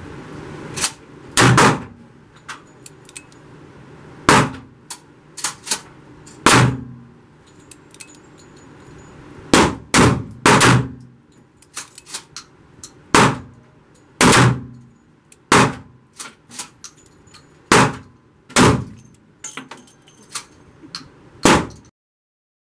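An irregular string of loud gunshots echoing around a shooting range, about a dozen of them, with fainter shots in between. Some are likely .38 Special rounds fired from a Smith & Wesson Model 586 revolver.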